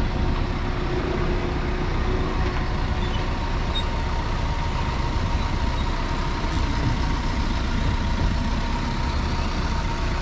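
A vehicle engine idling, a steady low rumble with a faint steady whine over it.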